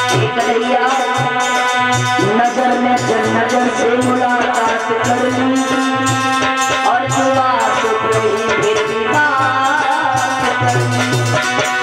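A woman singing a sad Hindi ghazal into a microphone over keyboard and a steady drum beat; her voice comes in about two seconds in, after a short instrumental lead-in.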